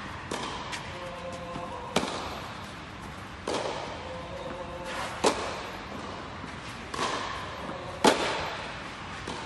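Tennis ball struck by racquets in a rally on an indoor clay court: sharp pops every second or two, each echoing in the hall, with softer ball bounces between them. The hits about 2 and 8 seconds in are the loudest.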